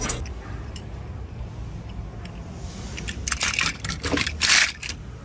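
Die-cast toy cars shifting and rattling in a plastic basket as it is handled, in two short rustling bursts over a low background rumble.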